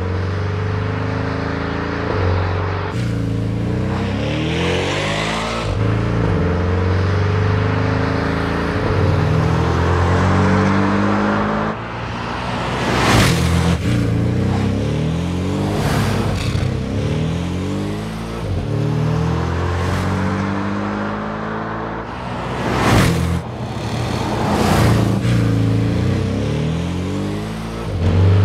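Porsche 718 Cayman GTS's turbocharged 2.5-litre flat-four engine driven hard on a track, its pitch climbing again and again under acceleration and dropping back at each gear change or lift, with a few short sharp cracks in the second half.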